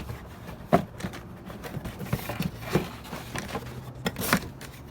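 Scattered clicks, knocks and scrapes of parts being handled, the sharpest knocks about a second in and near the end, over a faint steady low hum.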